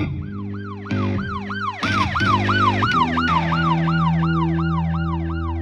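A fast yelping siren wail, sweeping up and down about three times a second, over sustained low synth chords and bass that change note a few times in the first three seconds.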